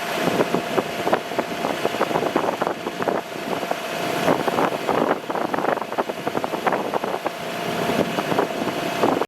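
Motorboat under way at speed: the engine runs steadily with a constant whine, mixed with the rush and irregular slaps of the hull through waves and wind noise.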